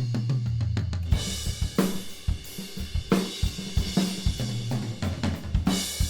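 Recorded acoustic drum kit playing a groove: kick drum, snare, rack and floor toms and cymbals, many strikes in quick succession. Near the start the mid-side room microphones come into the mix, and the kit suddenly sounds fuller and more explosive, with the room's reflections filling the gaps between hits.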